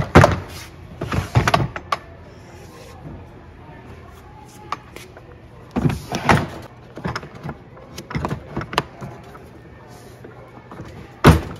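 Hard plastic DeWalt ToughSystem 2.0 tool boxes clunking and clicking as they are lifted, set onto a stack and snapped together, in several short bursts of knocks.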